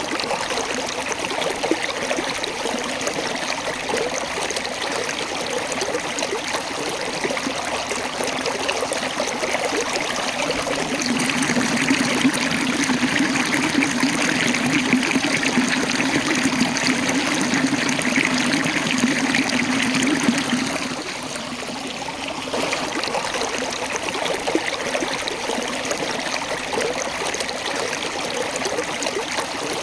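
Waterfall water running and splashing over rocks, a steady rushing. It grows louder through the middle and eases back about two-thirds of the way through.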